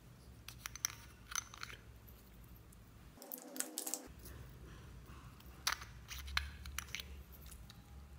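Light crunchy clicks and ticks as heart-shaped glitter confetti is shaken from a small plastic jar onto slime, in scattered bursts.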